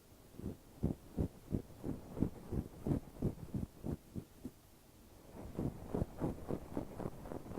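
Ear pick scraping close against a recorder's microphone in quick, even strokes, about three a second. The strokes stop for just under a second a little past the middle, then start again in a slightly faster run.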